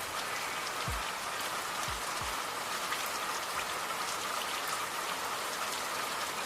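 Steady rain falling, an even hiss of drops, with three soft low thumps in the first couple of seconds.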